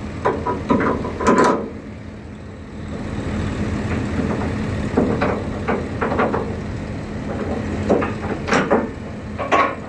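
Metal clanks and clinks of a steel outrigger beam lock pin and its chain being worked loose on a Terex AC250-1 mobile crane, a few sharp knocks at a time with some short metallic ringing. Under them runs a steady engine idle.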